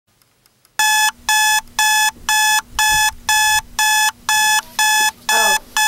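Electronic alarm clock beeping: a steady pitched beep about two times a second, starting just under a second in.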